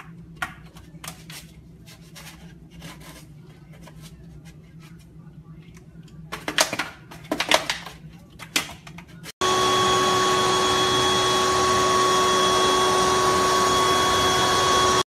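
A puppy's paws tap and scrape against refrigerator drawers, with a cluster of louder scuffs between about six and nine seconds in. Then the sound cuts suddenly to a loud, steady electric motor whir with a steady whine on top, much louder than the scraping.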